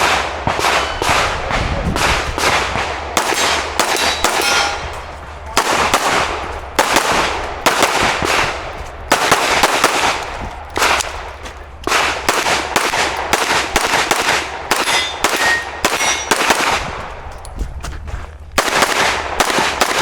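Handgun fire in fast strings of shots with short pauses, each shot echoing, with the ring of steel targets being struck between shots.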